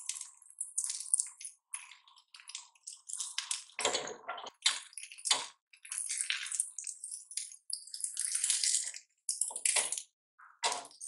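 Beaten egg and butter sizzling and crackling in a non-stick ceramic pan while a silicone spatula stirs and scrapes it into soft scrambled curds, in uneven bursts of crackle and squishy strokes. A couple of duller bumps come about four seconds in and near the end.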